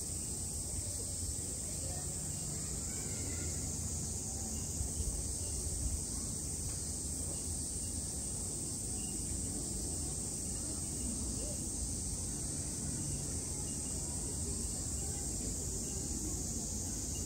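Steady, unbroken drone of cicadas in summer, over a low background rumble of outdoor ambience.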